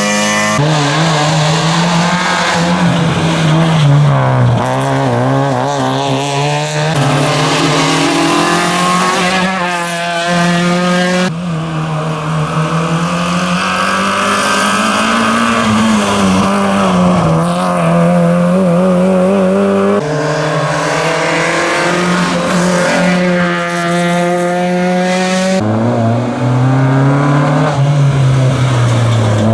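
Rally cars at full stage speed, their engines revving high and dropping through gear changes as they accelerate and pass. Several cars follow one another in short clips, each sound cutting off suddenly into the next.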